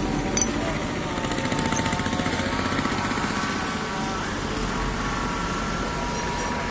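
Quartz stone cutting machine running steadily: a constant mechanical churning with a faint whine, and a few clicks in the first couple of seconds.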